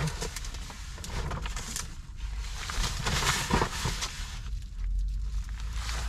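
Rustling and handling noises as a person shifts and reaches in a car seat: jacket fabric brushing, loudest about three seconds in, and a clear plastic bag crinkling in the hands near the end, over a low rumble.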